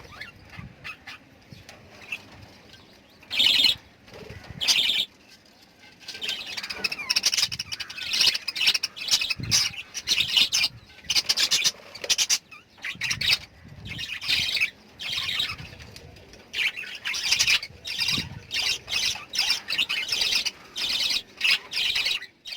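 Lovebirds chirping and calling: a couple of loud single calls in the first few seconds, then near-continuous rapid chatter of short, high chirps with brief pauses.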